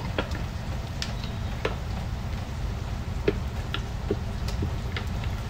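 Pot of hot chicken stock, just off the flame, still bubbling: a steady low rumble with scattered sharp pops and ticks at irregular moments.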